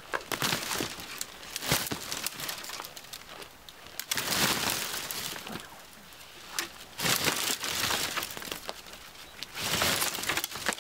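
Dry dead branches and twigs crackling and snapping in several bouts as a long dead branch is pulled and wrenched free through bare brush.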